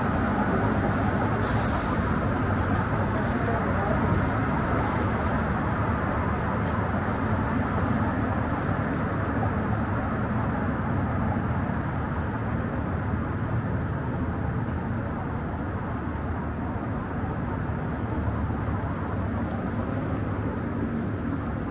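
Steady downtown street ambience: traffic running by with a low murmur of voices, easing off slightly over the stretch. One short sharp sound about a second and a half in.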